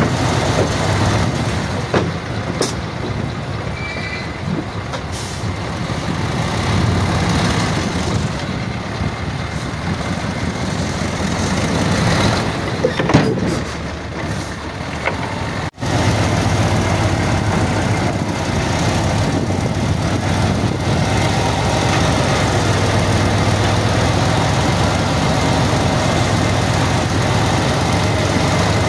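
Heavy diesel engine of construction machinery running steadily under load, with a few sharp knocks. The sound cuts out for an instant about halfway through, then the engine drone carries on more evenly.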